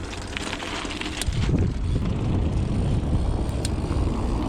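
Wind rumble on the microphone and tyre noise from a dirt jump bike being ridden, with a few light clicks and rattles from the bike; the rumble grows louder about a second in.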